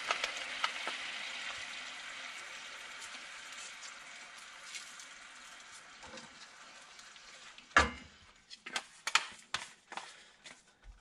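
Olive oil, garlic and clam juice sizzling gently in a stainless steel skillet over medium-low heat, the sizzle fading away over several seconds. About eight seconds in comes a thump, then a few light knocks.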